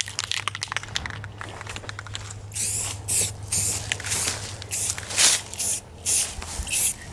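Aerosol can of Rust-Oleum gloss black enamel spray paint hissing in a string of short bursts, starting about two and a half seconds in.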